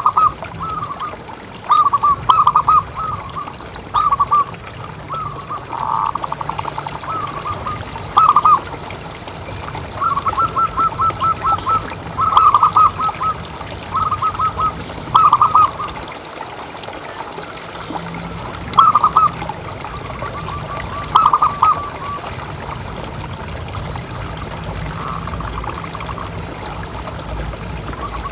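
Zebra doves (perkutut) cooing in short, rapid staccato phrases that repeat every second or two, some phrases overlapping as if from more than one bird. A steady trickle of water runs beneath.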